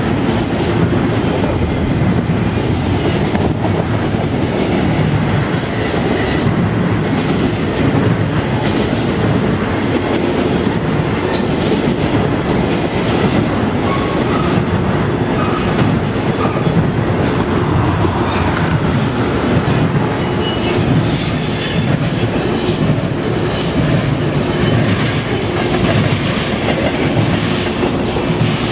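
Double-stack intermodal container freight train rolling past, its wheels and cars on the rails making a steady, loud running noise.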